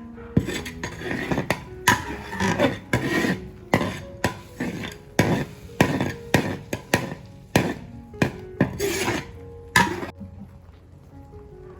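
A run of loud rasping, scraping strokes, about one or two a second, starting about half a second in and stopping about ten seconds in, over soft background music.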